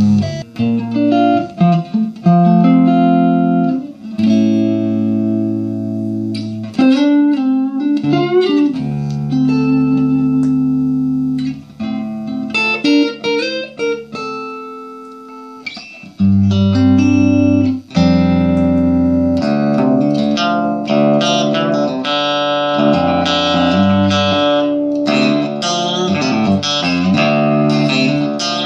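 Electric guitar played through a 6V6-powered, 20-watt 1x12 valve combo amplifier: held notes and chords, then a quicker run of single notes from about twenty seconds in.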